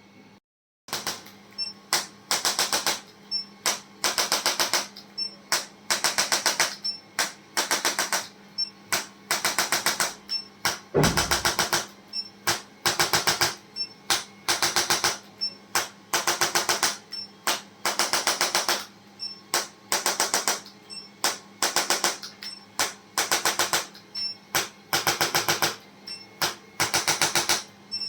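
Rapid mechanical clicking in short bursts, one burst about every second, repeated over and over above a steady low hum, with one deeper thump about eleven seconds in.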